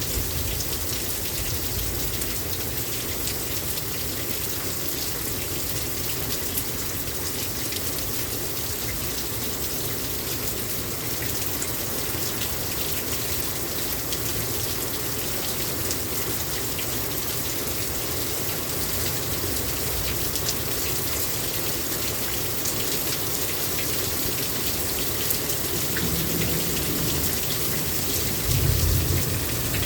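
Heavy rain pouring down steadily, a dense hiss with the patter of single drops. A low rumble of thunder builds near the end.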